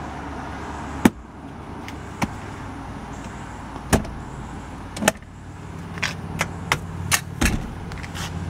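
Clunks and clicks of a Nissan Titan XD's rear-cab storage platforms and rear seat cushion being folded down and latched: a sharp knock about a second in, two more around four and five seconds, and a quick run of clicks near the end, over a steady low hum.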